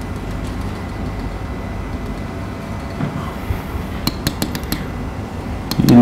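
Marker pen tapping and clicking on an interactive whiteboard as lines and labels are drawn, a quick run of light taps in the second half over a steady low room hum.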